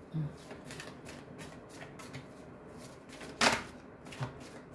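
A deck of tarot cards being shuffled by hand: a run of soft papery clicks, with a sharper, louder card slap about three and a half seconds in and a smaller one just after.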